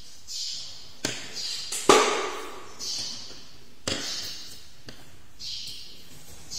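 Wooden coloured pencils knocking on a wooden tabletop as they are put down and picked up: several sharp taps, the loudest about two seconds in with a short ring. A soft scratchy hiss comes back about once a second between them.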